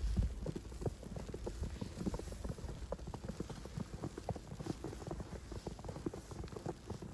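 Footsteps crunching in fresh snow: a dense run of short crunches, with a short low rumble right at the start.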